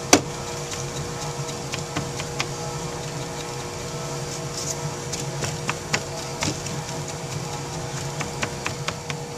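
Foundry sand being rammed into a molding flask by hand: scattered soft knocks and taps, with one sharp knock right at the start, over a steady machine hum.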